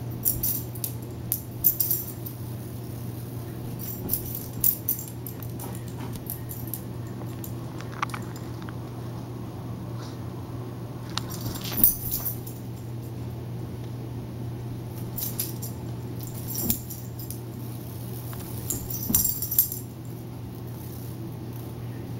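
A small dog's metal collar tags jingling in short bursts every few seconds as it moves and pounces, over a steady low hum.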